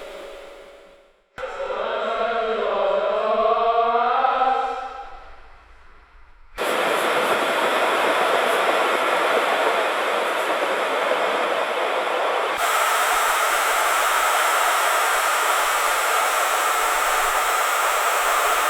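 Laundry machines in a laundry room, in spliced segments. There is a wavering, whining machine sound for a few seconds, then a steady loud rushing noise, which switches abruptly to a brighter hiss with a faint steady tone partway through.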